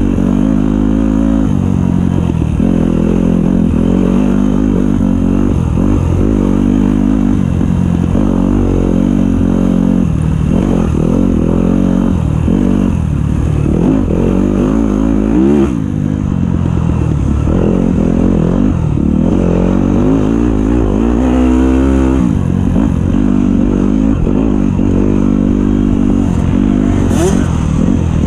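Dirt bike engine revving up and falling back again and again as the rider accelerates, shifts and backs off along a tight wooded trail, heard from on the bike, with rattling over the rough ground.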